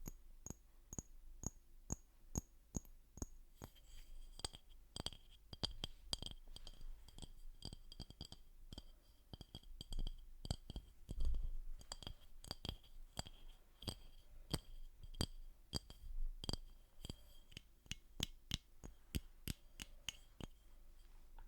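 Quick, uneven tapping on a small hard object, about two or three taps a second, each tap leaving a short high clinking ring; the ring drops to a lower pitch about four seconds in.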